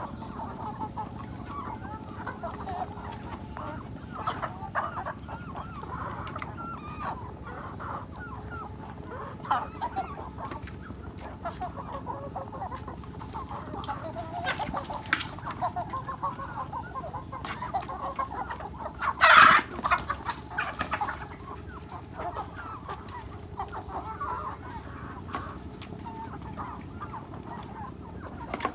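A flock of hens clucking continuously while they feed, many short calls overlapping, with one loud call standing out about two-thirds of the way through.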